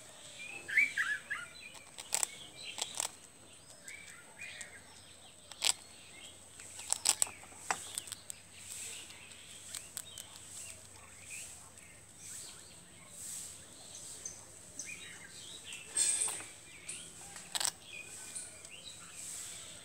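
A squirrel crunching hard toast in irregular sharp bites, a quick cluster about seven seconds in and the loudest near the end, with small birds chirping in the background.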